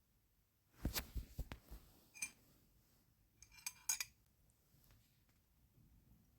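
Light clicks and clinks of small tools being handled at a work table, in a cluster about a second in and another just under four seconds in.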